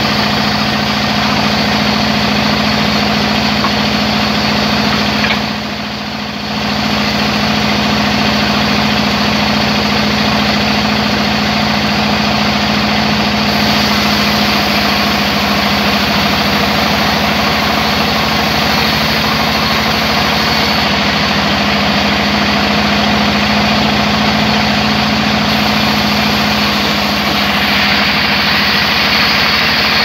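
Large sawmill band saw running with a steady hum while a log is fed into the blade. The sound dips briefly about six seconds in, and a brighter hiss rises near the end.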